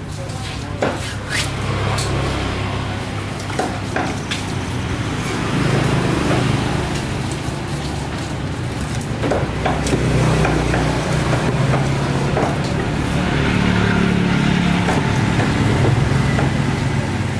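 Steady low engine hum of vehicle traffic, swelling and fading over busy market noise. A few sharp knocks come from a large knife striking a wooden stump chopping block, twice in the first seconds and a few more near the middle.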